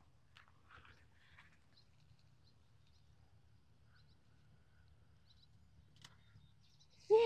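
Faint rustling of apple-tree leaves and branches as apples are picked by hand, with a few faint high chirps. Near the end, a child's voice starts, loud and held on one pitch.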